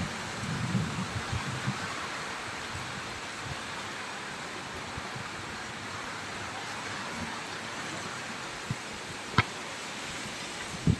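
Steady rain hissing, with a few low thumps about a second in and a single sharp tick about nine seconds in.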